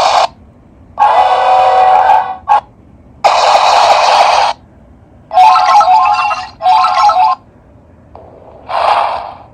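Small speaker of a SEIKO CQ165S Ultraman alarm clock playing a run of its built-in Ultraman sound effects, one short clip after another with brief pauses between them, about five in all. The clips are roars and electronic effects, one of them pulsing in quick repeated tones.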